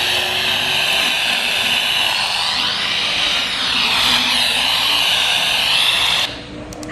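Weather radio receiver hissing with static, faint whistles wavering up and down through the noise, the mark of a weak signal with interference from another station on the same frequency. The static drops off sharply about six seconds in.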